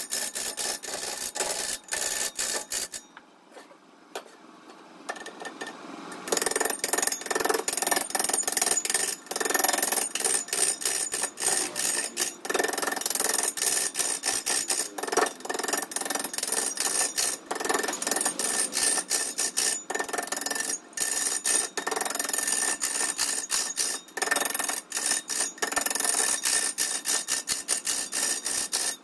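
Wood being worked on a turning lathe: a rough scraping hiss with many brief breaks, falling away for about three seconds near the start.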